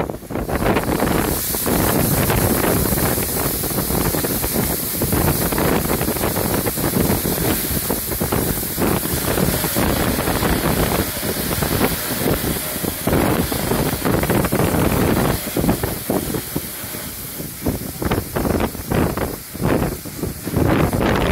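Grain pouring from an overhead loading spout into a rail hopper wagon: a continuous rushing hiss, with gusts of wind on the microphone.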